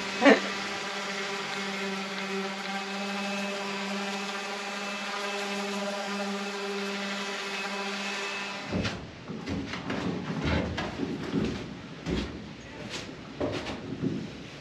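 Electric sander running with a steady hum, then cutting off about nine seconds in; after it come irregular knocks and scrapes of wood and tools being handled.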